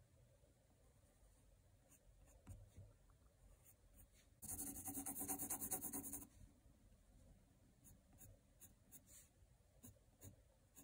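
Black Col-Erase pencil scratching on mixed-media drawing paper: faint scattered strokes, then a louder run of rapid back-and-forth hatching strokes lasting about two seconds, a little before halfway through.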